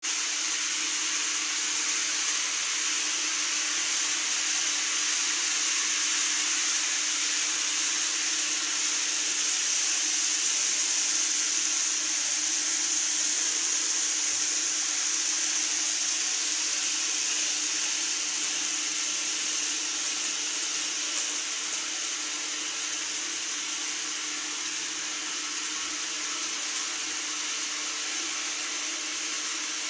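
Model electric train running on the layout's track: a steady whirring hiss of motor and wheels, a little louder as the train passes in the middle and easing off in the last third.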